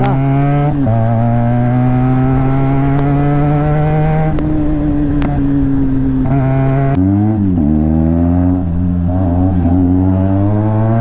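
Motorcycle engine and exhaust running hard under throttle, its pitch climbing slowly and dropping sharply about one, four and seven seconds in.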